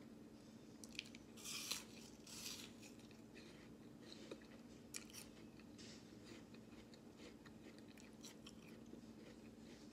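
Crisp raw apple being bitten and chewed, with two loud crunches about a second and a half and two and a half seconds in, then softer, scattered chewing clicks.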